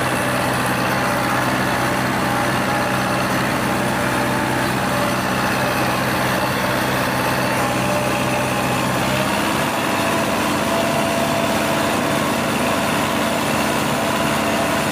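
Farm tractor's diesel engine running steadily under load while pulling a disc harrow through the field. Its low note shifts slightly about nine seconds in.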